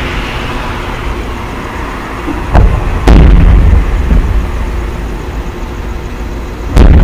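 Aerial firework shells bursting. A smaller bang and then a loud boom come about half a second apart, three seconds in, and another loud boom comes near the end. Each boom is followed by a long rolling rumble.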